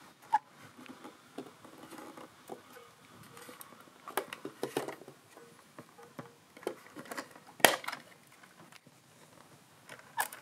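Scattered clicks, taps and light rattles of small hard objects being handled, the sharpest click a little past seven and a half seconds in.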